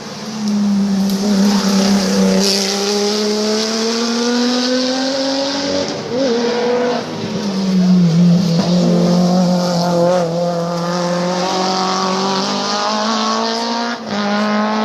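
Rally car engine held at high revs, its pitch rising slowly, dipping briefly about six seconds in as the throttle is lifted, then climbing and holding again before dropping near the end.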